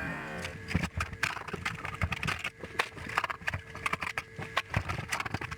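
Irregular clicks, taps and scrapes of hand tools and plastic and metal parts being handled while an old TV/VCR combo is taken apart, over a faint steady hum.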